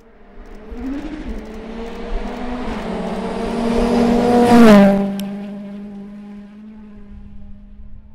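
A rally car approaching at speed, passing close by about four and a half seconds in with a sharp drop in engine pitch, then fading away as it drives off.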